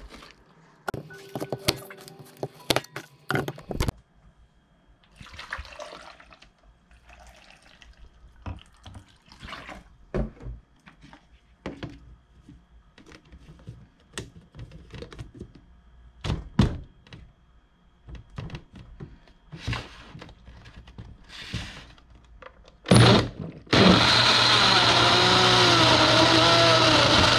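Scattered knocks and clatter of kitchen handling, then about 23 seconds in an electric blender switches on and runs loudly and steadily, its pitch wavering as it blends apple pieces into juice.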